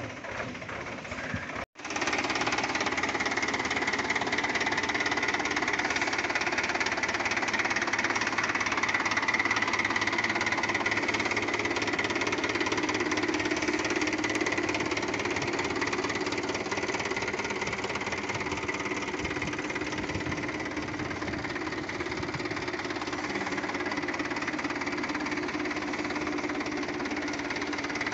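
Mahindra 575 DI tractor's four-cylinder diesel engine running steadily. The sound cuts out for an instant about two seconds in, then the engine is heard close up and louder.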